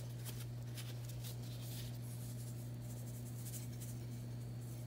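Light, irregular scratchy patter of salt shaken from a shaker onto raw chicken drumsticks, over a steady low hum.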